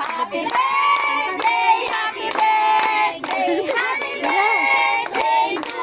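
High voices singing a birthday song with long held notes, with hands clapping along.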